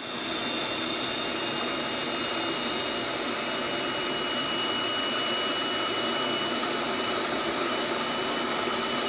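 Electric food processor running steadily, chopping tomatoes and onion into salsa, with a high motor whine over the whir of the blade.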